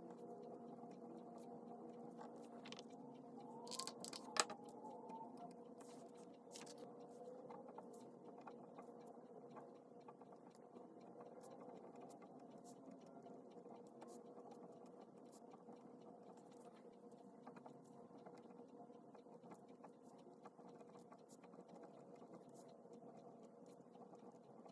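Faint scratching and small ticks of a pen writing on paper, over a steady low hum, with a sharper click about four seconds in.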